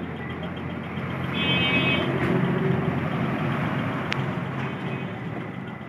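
Steady road-traffic noise, with a short horn toot about one and a half seconds in.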